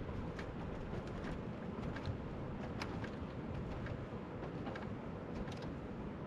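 Steady rushing outdoor noise, with faint short clicks scattered through it.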